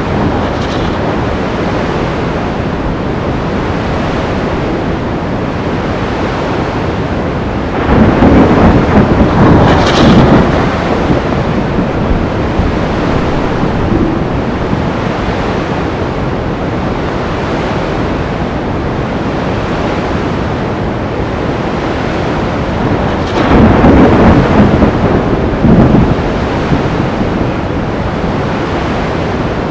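Stormy sea: a steady roar of surf and wind, broken by two louder crashing surges, one about eight seconds in and one about twenty-four seconds in, each lasting two to three seconds.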